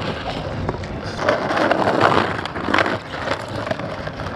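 Skateboard wheels rolling over rough asphalt, with a few sharp clacks of the board hitting the ground.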